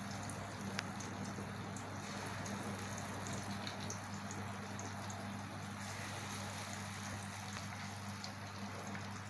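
Moong dal batter fritters deep-frying in hot oil: a steady sizzle with scattered small pops and crackles, over a low steady hum.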